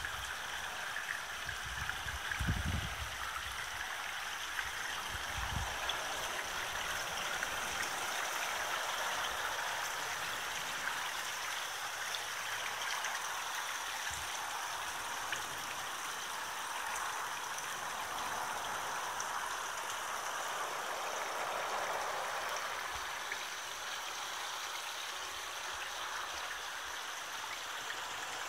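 Water splashing steadily down a garden rock waterfall, falling over several small stone-step drops into a shallow stream. A few low thumps come in the first few seconds.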